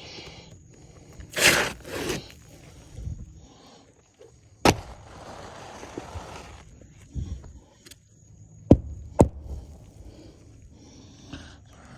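Handling noises: a scraping sound about one and a half seconds in, then a few sharp knocks spread through the rest, two of them close together near the middle.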